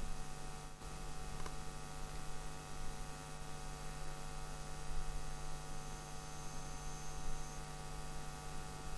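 Steady electrical hum with an even hiss under it, and a faint click about a second in.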